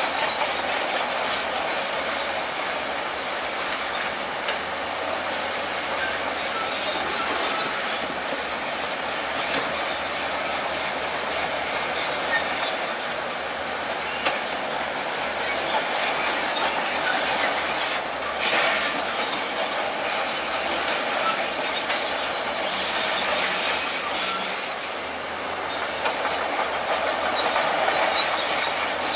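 Bulldozer at work: its steel crawler tracks clank and squeal over a steady engine noise, with occasional sharp clanks.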